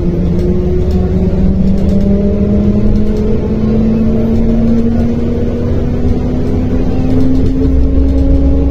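MAZ-105 city bus heard from inside the passenger cabin while accelerating: the engine and drivetrain hum rises slowly and steadily in pitch over a constant low rumble, which grows louder near the end.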